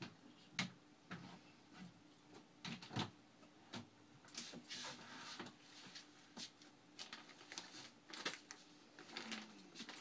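Faint, irregular clicks and soft rustles over a low steady hum, like small handling noises in a small room.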